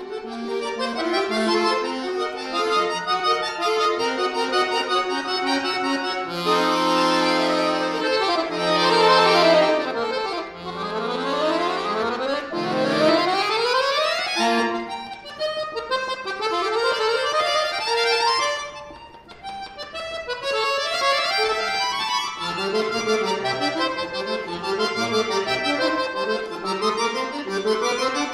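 Solo chromatic button accordion (bayan) playing a fast classical piece: quick runs of notes sweeping up and down over held bass chords, with a brief drop in loudness about two thirds of the way through before the runs resume.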